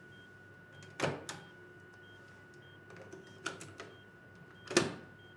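Sharp mechanical clicks of a cassette boombox's piano keys being pressed: two close together about a second in, two more past the midpoint, and the loudest near the end, over a faint steady electronic tone.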